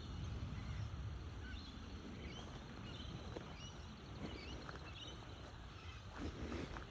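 Scattered short, faint bird chirps from the surrounding bush over a steady low rumble, with a couple of soft knocks near the end.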